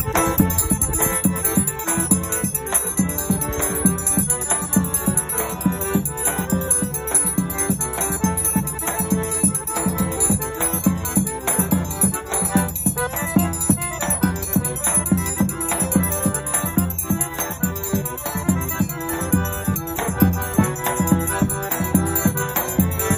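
Lively accordion dance music with a steady beat.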